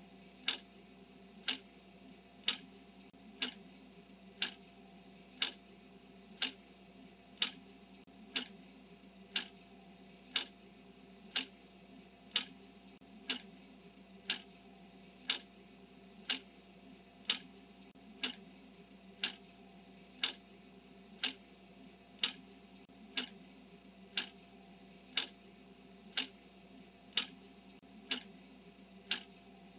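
Clock ticking steadily, one tick a second, marking off the seconds of a countdown timer, over a faint low hum.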